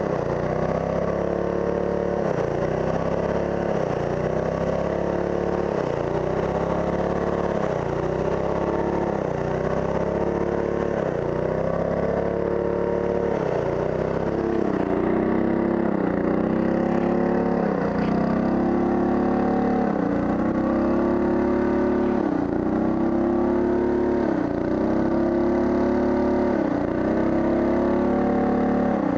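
Pressure washer engine running under load while the wand sprays, its pitch dipping and recovering every second or two, with the water jet hissing against the metal panel.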